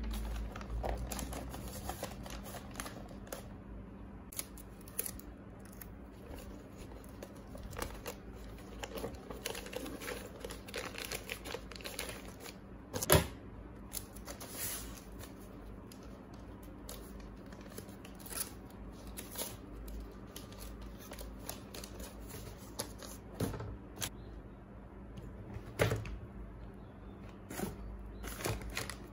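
Brown paper rustling and crinkling as hands fold and press it around a cardboard box, with scattered taps and knocks from handling, over a low steady hum. The loudest is a single sharp knock about halfway through. Near the end, cables are set into the box.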